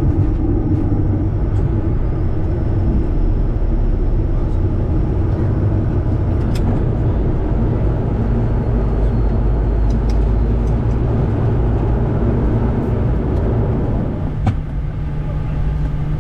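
Bombardier Challenger 350 business jet at takeoff power, heard from the cockpit: a steady, loud, low rush of its turbofan engines and the airflow through the end of the takeoff roll, liftoff and initial climb, with a few sharp clicks. About fourteen seconds in the noise eases slightly and a steady hum remains.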